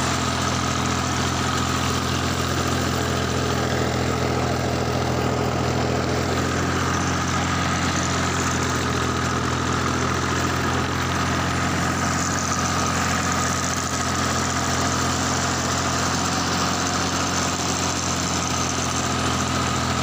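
Farm tractor's diesel engine running steadily while ploughing a field, heard from the driver's seat.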